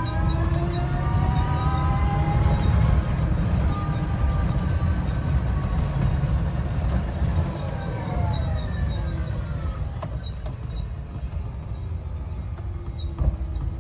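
Electric motor of an Urban Triker electric trike whining, the whine rising in pitch as it speeds up, holding, then falling away as it slows, over a steady low rumble; this is the strange noise the owner is asking about. A couple of sharp clicks come near the end.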